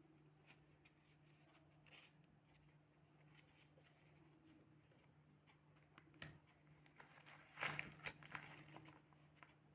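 Near silence with a low steady hum and scattered faint clicks, then a brief louder burst of rustling and clicking, as of something being handled, about three-quarters of the way through.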